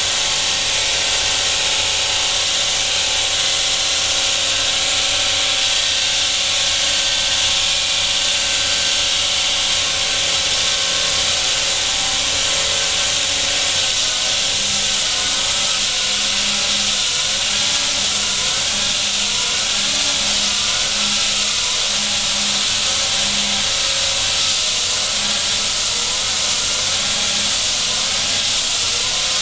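Concrete wall saw running steadily and loud as its diamond blade cuts through concrete, a hissing grind over a motor tone that starts wavering up and down about halfway through.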